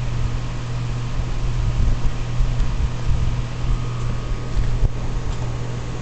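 3.5-ton Lennox XC15 central air conditioner's outdoor condensing unit running at full output, compressor and condenser fan making a steady low hum. The unit, five years in the field, still runs quietly.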